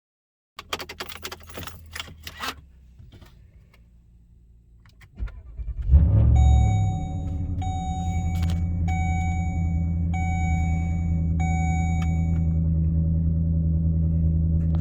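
Keys jangling and clicking, then a short crank and the Volvo 4.4 V8 (B8444S) catches about six seconds in, flares up and settles into a steady idle, likely the first start after an oil change. A pitched warning chime beeps five times, about a second and a quarter apart, over the idle.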